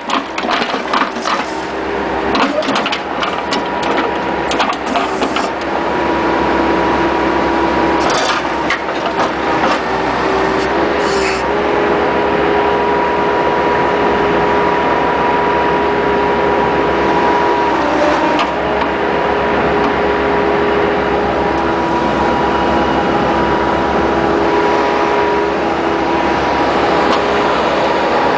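Bobcat skid-steer loader working a 709 backhoe attachment: the engine and hydraulics run steadily with a constant whine. Clattering knocks come through in the first few seconds and again about eight to eleven seconds in, as the bucket digs broken asphalt.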